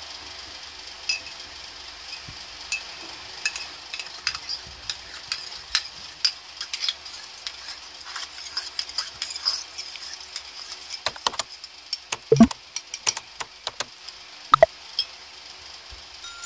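Metal spoon stirring in a ceramic mug with many light clinks against the sides, then a run of louder metal-on-ceramic clinks near the end. A steady high hiss runs underneath.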